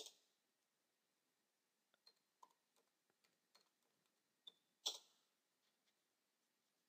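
Faint computer keyboard keystrokes: a click, then a quick row of light key taps as a password is typed, and a louder key press about five seconds in as Enter is hit.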